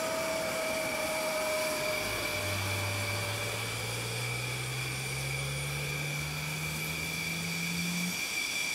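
Din of jet engines on an aircraft carrier's flight deck: a steady rushing noise with a high whine held throughout, and a low hum that slowly climbs in pitch over several seconds from about two seconds in.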